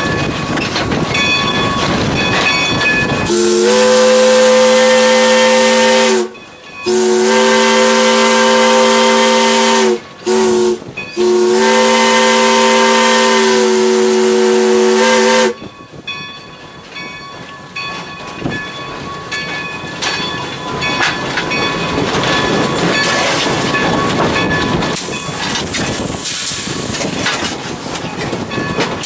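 A 1909 steam locomotive's whistle, blown from the cab, sounding a chord of several tones in two long blasts, a short one and a long one: the grade-crossing signal. A steady steam hiss fills the time before and after the whistle.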